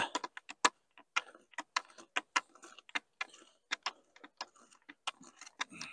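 Kent and Stowe oscillating hoe pushed and pulled through loose soil, its pivoting blade clicking and scraping in quick, irregular strokes, several a second, as soil is drawn over a planted bed.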